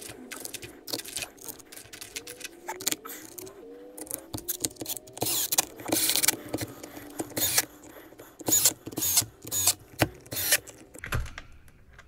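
Screws being fastened into a Traxxas X-Maxx RC truck chassis: a run of sharp clicks and ratcheting, with a few short rising whirs in the first half and louder, more frequent clicks in the second half.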